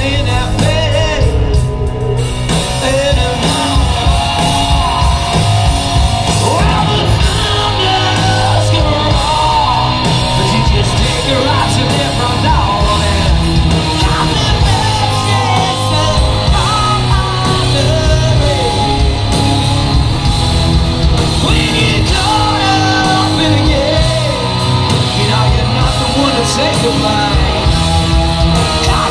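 Live hard rock band playing: a male lead vocalist sings over distorted electric guitar, bass and drums. The music is loud and steady, with no break.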